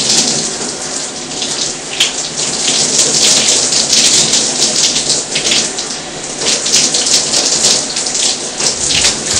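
Handheld shower head spraying warm water onto hair and scalp: a steady, loud hiss of running water as the conditioner is rinsed out.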